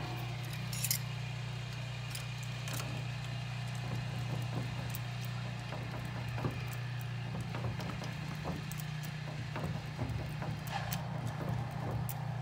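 Small irregular metallic clicks and clinks of a lead soft key, gripped in vise grips, being put into a Ford 5-pin lock cylinder and twisted and wiggled against its binding pins to raise impression marks. Behind it runs a steady low engine drone from a snowblower.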